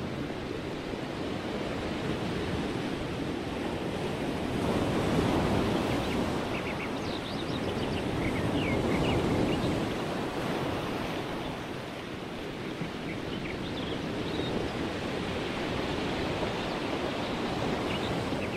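Ocean waves surging and washing in a continuous rush that swells and eases, loudest about five and nine seconds in, with a few short high chirps here and there.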